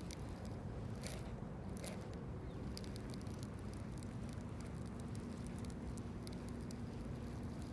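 Baitcasting reel being cranked during a glide-bait retrieve: fast, irregular fine clicking over a steady low rumble, with a faint steady hum joining about four seconds in.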